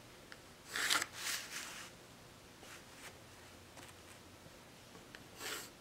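Coloured pencil scratching across paper in a few short strokes drawn along a wooden ruler, the loudest about a second in, with the ruler shifted on the sheet.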